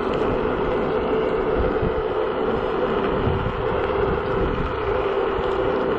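Navee N65 electric scooter riding at a steady speed: a steady motor whine over wind and road rumble.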